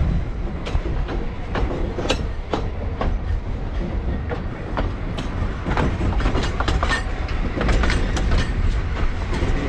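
Narrow-gauge steam train in motion: a steady low rumble with frequent irregular knocks and rattles from the wheels and carriages running over the track.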